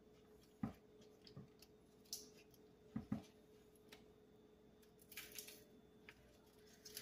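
Faint, scattered taps and clicks of a large kitchen knife against a cutting board as Swiss chard stems are cut out, with a brief rustle about five seconds in, over a faint steady hum.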